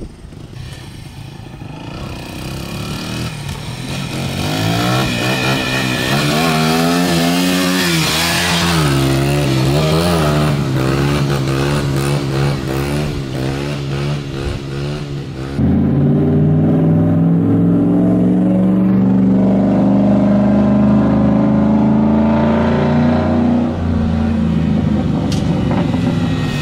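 Dirt bike engine revving up and down as it rides along, growing louder over the first few seconds. About halfway through a louder, steadier dirt bike engine note takes over, its pitch climbing slowly.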